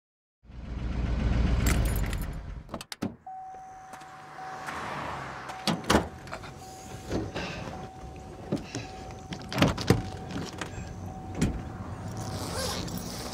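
Car sounds: a loud low vehicle rumble for the first couple of seconds, then a thin steady electronic tone held for about nine seconds while knocks and clunks, like doors and things being handled around a car, sound every second or two.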